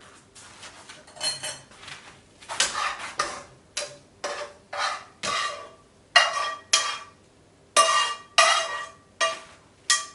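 Dishes and cutlery being handled: about a dozen separate clinks and clatters, some with a short ringing tone.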